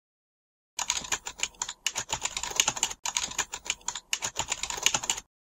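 Rapid computer-keyboard typing, a dense run of key clicks with a few brief pauses, starting about a second in and stopping suddenly near the end.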